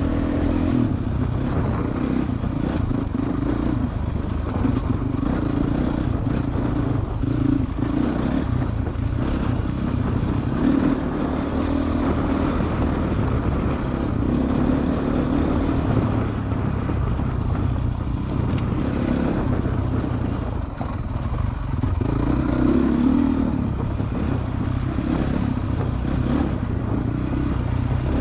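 2013 Honda CRF450R's single-cylinder four-stroke engine running on a dirt trail, heard from a helmet-mounted camera, its note swelling and easing with a brief drop about twenty seconds in.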